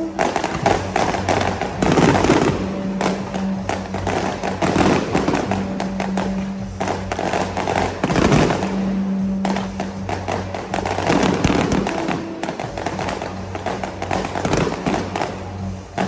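Fireworks going off in rapid succession, sharp bangs and crackling bursts throughout, with music playing underneath.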